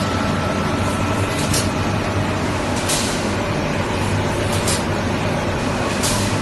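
Egg tray production line machinery running with a steady low hum. Short hisses of air break in about every one and a half seconds.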